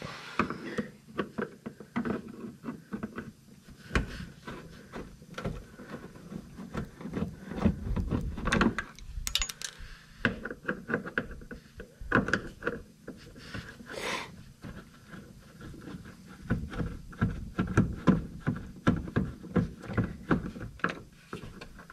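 Hand work on a truck's plastic wheel-well liner: irregular clicks, taps and rubbing as screws are backed out with a screwdriver.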